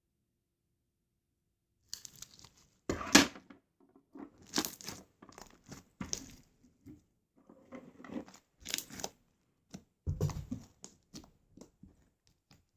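Slime being squeezed, stretched and pulled apart by hand: a string of irregular bursts of noise, the loudest about three seconds in, beginning after about two seconds of silence.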